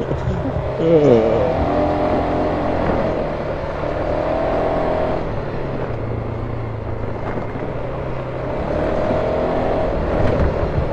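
Four-wheeler (ATV) engine running on the trail, its pitch rising and easing off a few times as the throttle opens and closes.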